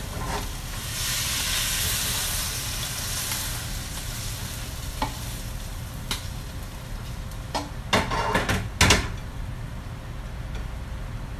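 Green bitter melon and beef sizzling in a wok while being stir-fried with a spatula. The sizzle is loudest in the first few seconds and then dies down, with a few scattered clicks. About eight seconds in come several sharper knocks and scrapes of the spatula against the wok as the food is turned out. A steady low hum runs underneath.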